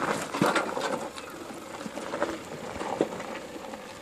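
Nissan Terrano II crawling slowly over loose rock: tyres crunching and stones clattering in irregular knocks, with the engine running low and steady underneath.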